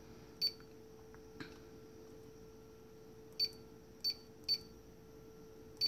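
Dynamite Passport Ultra Force Duo battery charger giving short, high key-press beeps as its touchscreen buttons are tapped. There is one beep about half a second in, then four more in quick succession in the last two and a half seconds, over a faint steady hum.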